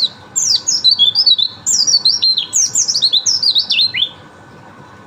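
White-eye (pleci) singing a fast, unbroken warbling song of high, quick downward-sliding whistled notes, which stops about four seconds in.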